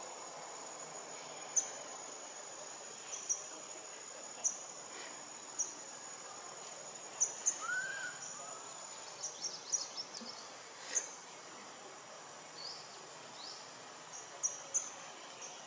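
Outdoor forest ambience: a steady high-pitched insect drone that fades out about two-thirds of the way through. Scattered short bird chirps run over it, with one brief arched whistle about halfway.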